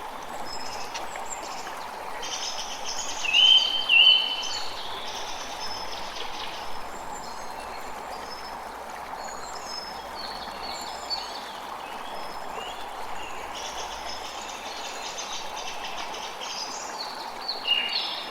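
Forest birds singing and calling, several overlapping songs, over a steady rushing background. The loudest call comes about three and a half seconds in, with another loud burst of song near the end.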